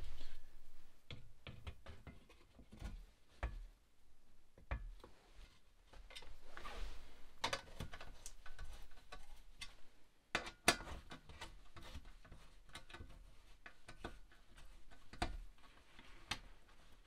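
Scattered clicks and knocks as metal parts are handled and a screwdriver turns small screws, fitting an electric fan and its painted shroud to an aluminium radiator. One sharper knock comes a little past the middle.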